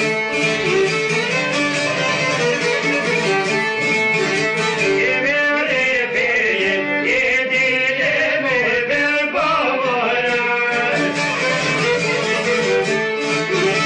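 Folk music played on plucked long-necked lutes: a fast, even strummed rhythm under a wavering melody line.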